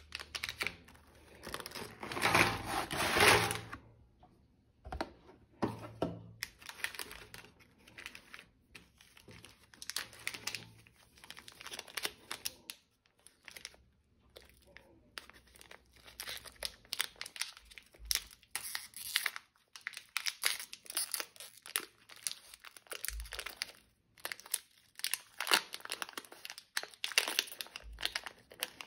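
Shiny metallised plastic snack wrappers crinkling and rustling in irregular bursts as individually wrapped biscuit packets are handled, with the loudest burst about two to three seconds in and a packet torn open near the end.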